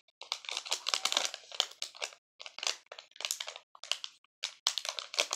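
Plastic packaging of a slime kit crinkling and rustling in short, irregular bursts as it is handled.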